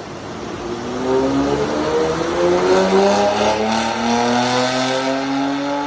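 Porsche Macan GTS twin-turbo V6 with a Stage 2 Plus tune, at full throttle on a dynamometer. The engine note climbs steadily in pitch as it pulls up through the revs.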